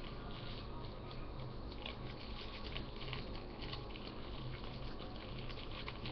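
Hands working macaroni and cheese in a bowl: soft, irregular crackles and small clicks over a steady low hum.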